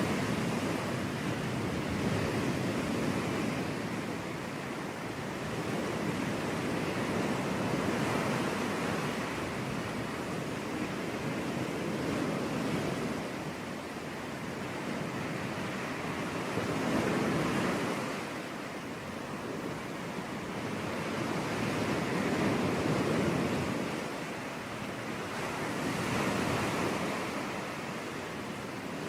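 Ocean waves washing onto a beach, a steady surf hiss that swells and eases every few seconds as each wave comes in.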